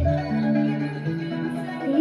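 Dance music played loud through a DJ's sound system. A stretch of held notes steps from one pitch to the next with the bass and beat dropped out, and the heavy bass beat comes back in at the end.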